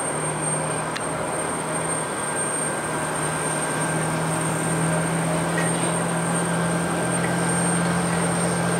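Airbus A330 twin-engine jet airliner on final approach to land, its engines giving a steady hum with a faint high whine that grows slowly louder as the plane nears.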